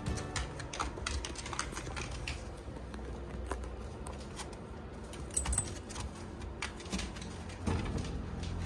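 Shiba Inu puppies' claws clicking irregularly on a wooden floor as they scuffle over a plush toy.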